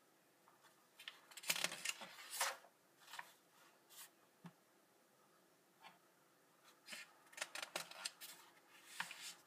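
Comic book pages rustling as a page is turned, about a second and a half in, followed by several more short paper rustles and brushes from a hand moving over the pages later on.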